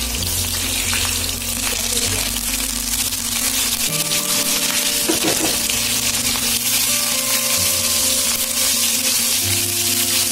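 Hot oil sizzling in a frying pan as a tempering of cumin seeds, garlic and dried red chillies fries: a steady hiss. Curry leaves go into the oil partway through, and a ladle stirs near the end.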